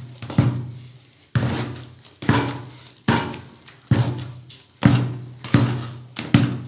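Metal ladle knocking and scraping against a large aluminium cooking pot, a bit more than once a second, each stroke ringing briefly in the pot. The rice is being beaten and rubbed so that it turns sticky.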